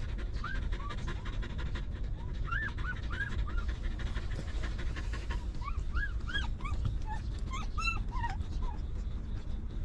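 Newborn puppies squeaking and whining in short rising-and-falling cries, coming in clusters and busiest in the second half, while the mother dog pants.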